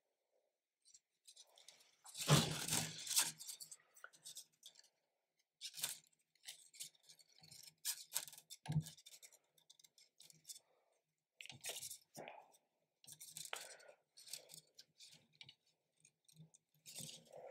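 Plastic 3D-printer filament and its tubing scraping and rustling as the filament is pushed by hand through the extruder into the tube, with a louder scratching stretch about two seconds in and scattered small scrapes and clicks after it.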